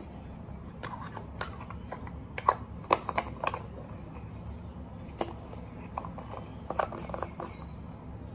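A small jar with a plastic screw lid being handled and twisted, giving scattered sharp clicks and taps over a steady low hum.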